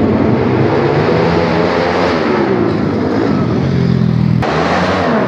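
Dirt bike engines running and revving, the pitch rising and falling with the throttle. The sound changes abruptly about four and a half seconds in.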